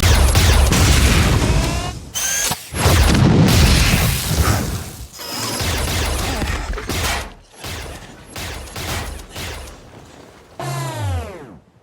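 Cyberman (Warrior class) sound-effect clips: heavy metallic stomping footsteps with deep thuds and mechanical servo whirring, in several separate takes. Near the end, a falling electronic whine like a power-down.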